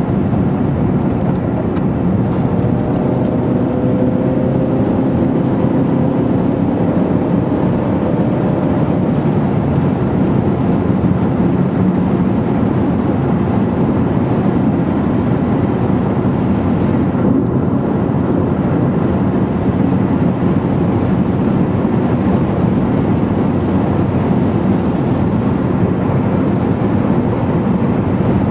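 Steady engine and tyre noise inside the cabin of a car driving at road speed, with a faint engine tone rising slowly in the first several seconds.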